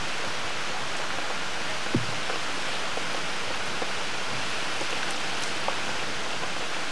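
Heavy hurricane rain falling steadily on pavement, an even hiss. A brief low thump comes about two seconds in.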